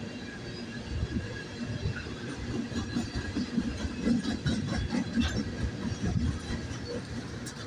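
Freight train of tank cars rolling past on an elevated track: a steady wheel rumble with scattered, irregular clacks from the wheels over the rails.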